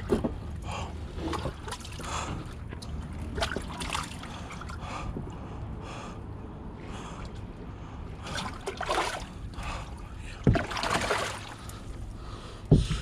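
Water splashing and sloshing around a kayak with scattered knocks on the hull while a large sheepshead is fought close by on a light rod, with a couple of heavier thumps, one about ten seconds in and one near the end.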